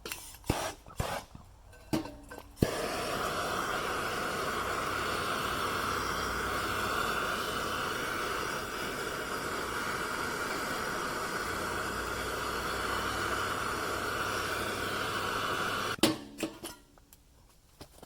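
A few clicks and knocks, then a steady machine-like rushing noise that switches on abruptly, runs for about thirteen seconds and cuts off suddenly, followed by a few more clicks.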